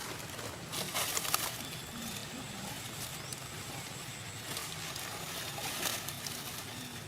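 Steady outdoor background hiss with a few brief rustles or knocks about a second in and again near six seconds.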